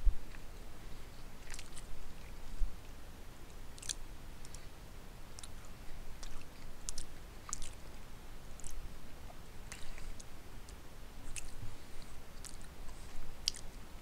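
A person chewing a mouthful of soft pot roast with the mouth closed: scattered wet mouth clicks and smacks, irregular, about one a second. A low thump at the very start and another about three seconds in.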